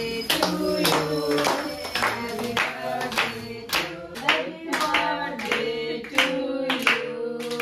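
A small group singing a birthday song together and clapping in time, about two claps a second.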